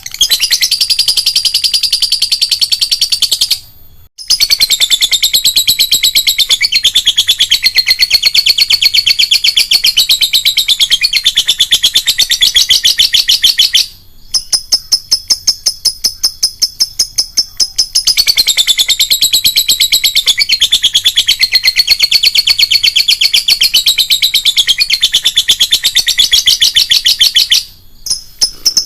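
A lovebird giving its long, rapid, shrill chattering trill (ngekek), many notes a second in long unbroken runs. The runs stop briefly about four seconds in and again near the end. Between about fourteen and eighteen seconds in, there is a stretch of quieter rapid ticking.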